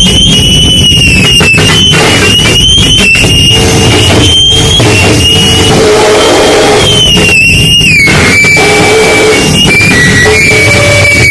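Harsh noise music: a constant, very loud wall of distorted noise with a thin high whine that wavers and drifts in pitch, chopped by frequent brief stuttering cuts.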